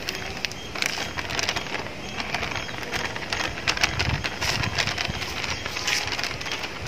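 Par-fried potato sticks being tossed with rice flour in a bowl: an irregular run of dry rustles and light clicks.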